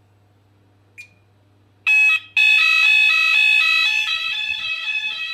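Gent S-Quad multi-sensor sounders going into fire alarm after a single short beep: a loud steady high tone over a repeating stepped lower pattern. It starts about two seconds in, cuts out for a moment, then continues.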